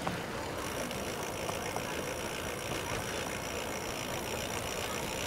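Steady rush of wind and tyre noise from riding a Giant Fastroad Advanced 1 bicycle along a concrete footpath, picked up by a handlebar-mounted camera. A faint steady high tone joins about half a second in.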